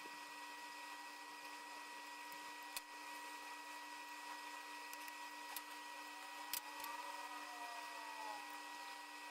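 Faint steady electrical whine, with a few light clicks spread through, the sharpest nearly three seconds in, and two more after the middle.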